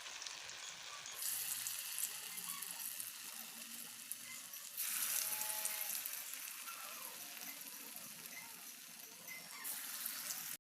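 Small banana-flower and chana dal balls deep-frying in hot oil in a kadai: a steady sizzle of bubbling oil, stepping up louder about a second in and again near five seconds.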